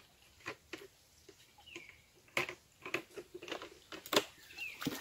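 Dry bamboo leaves and twigs crackling and snapping underfoot in irregular snaps, loudest about halfway through and again near the end.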